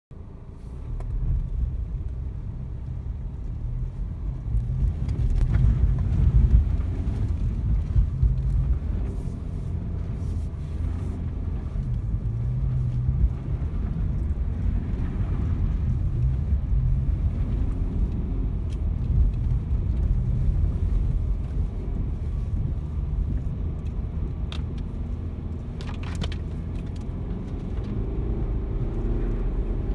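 BMW 320d's two-litre four-cylinder turbodiesel running under load as the car drives through snow, heard from inside the cabin: a low rumble that swells and eases with the throttle. A few sharp clicks sound over it.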